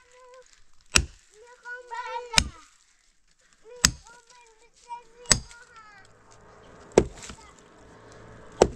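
Axe chopping firewood: six sharp, evenly spaced blows, about one every one and a half seconds.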